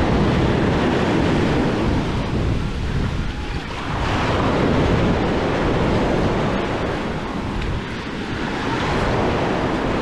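Sea waves washing onto the beach, rising and falling every few seconds, with wind buffeting the microphone.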